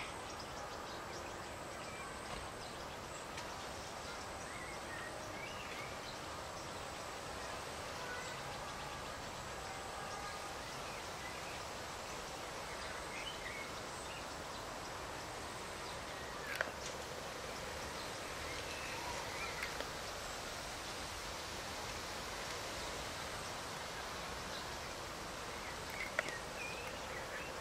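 Steady outdoor background hiss with faint bird chirps now and then, and two brief clicks, one just past the middle and one near the end.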